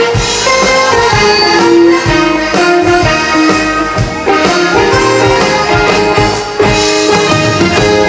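Instrumental introduction of a trot song, with a brass-like lead melody over the band accompaniment.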